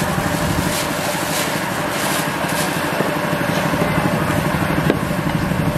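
A small engine idling steadily: an even low hum with a fast pulse.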